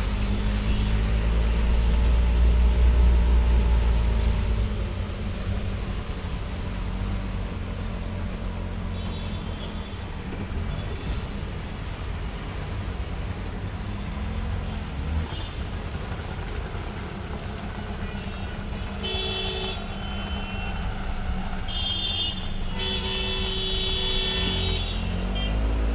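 Auto-rickshaw engine running with a steady low rumble as it moves through traffic on a waterlogged road. Vehicle horns honk several times around it, mostly in the last several seconds.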